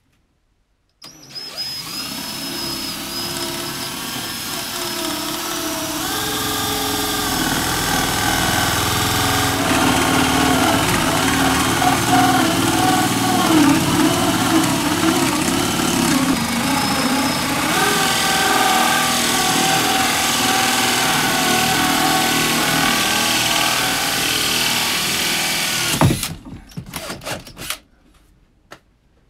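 DeWalt cordless drill turning a 2-inch hole saw through a plywood cabinet panel. The drill starts about a second in, runs steadily as the saw cuts for about 25 seconds, then stops with a knock and a brief rattle.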